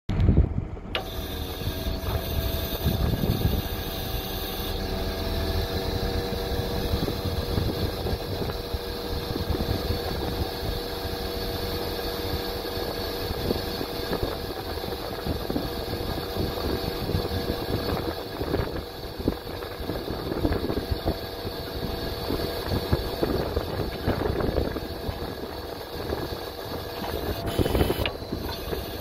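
Iveco Stralis truck's diesel engine running steadily to power the hydraulics of its Terex Atlas TLC 105.2 crane, with a steady tone over the rumble.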